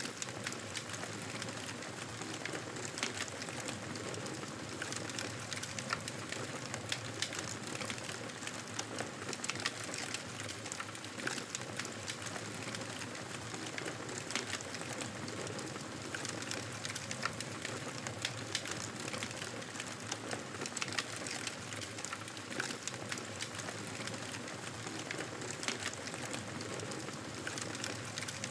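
Campfire burning steadily: a constant hiss with frequent sharp crackles and pops from the burning wood.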